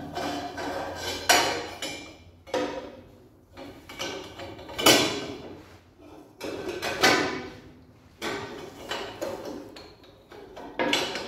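Steel exhaust pipe being manoeuvred into place against the exhaust manifold: a string of irregular metallic knocks a second or two apart, each ringing briefly.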